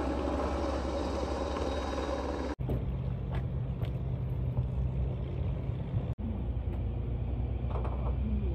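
Steady low rumble of a vehicle running, in three short clips cut together; the pitch of the hum shifts at each cut, about two and a half seconds in and again about six seconds in.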